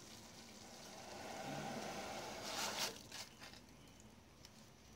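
White sugar poured into a pot of just-boiling water: a soft hiss that swells to its loudest at about two and a half seconds, then falls away to a faint simmer.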